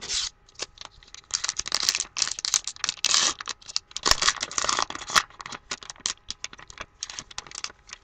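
A trading card pack's wrapper being torn open and crinkled, a dense crackle through the middle, then lighter clicks and flicks as the cards are taken out and handled.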